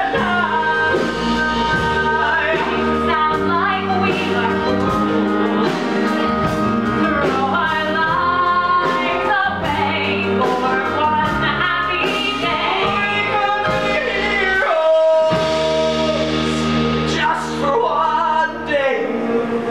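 A live love duet: a man and a woman singing over musical accompaniment with sustained bass notes.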